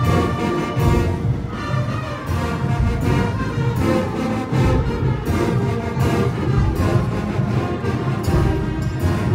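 Music with a steady beat and deep drums, loud and unbroken.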